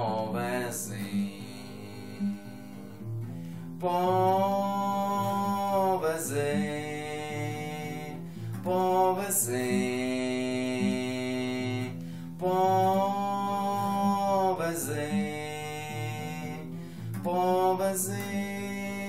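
Acoustic guitar strummed steadily, with a man's voice singing long held notes over it, about four times.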